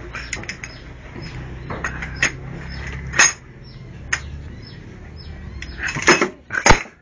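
Light metal clicks and clinks as a small child handles the parts and crank handle of a small stationary engine, with a louder knock about three seconds in and two more near the end.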